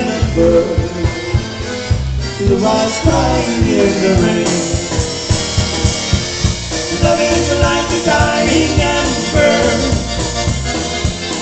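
Live band of accordion, electric guitar and drum kit playing an instrumental passage of a slow country ballad, with a steady drum beat under the melody.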